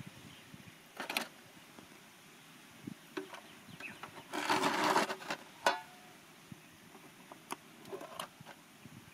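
Scattered light clicks and knocks of camp gear being handled, with a brief rustle about four and a half seconds in.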